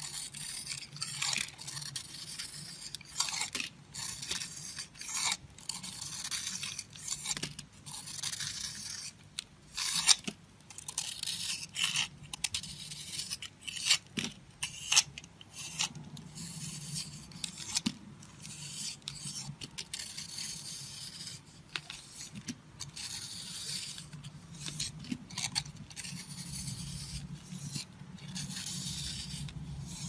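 Utility knife blade scraping and carving a dry, crumbly bar of soap: many crisp, irregular scraping strokes as flakes and crumbs come away.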